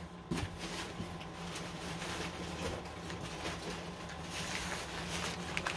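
Faint rustling and light handling noises, likely newspaper packing being handled, over a steady low hum.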